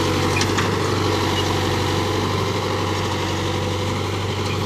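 Mahindra Yuvo tractor's diesel engine running steadily under load as it pulls a tine cultivator through the soil.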